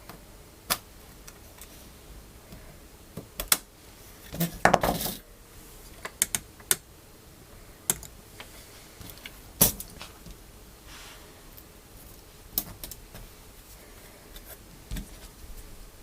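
Small plastic and metal clicks and rattles from keyboard stabilizer parts being snapped into a keyboard PCB and worked by hand. The clicks are scattered, with a short run of rattling clicks about five seconds in.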